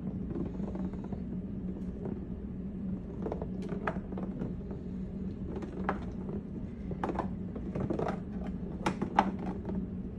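A paint-covered ball rolling around inside a tilted cardboard box lid over paper, with scattered light knocks as it bumps the box's cardboard walls, mostly in the second half. A steady low hum runs underneath.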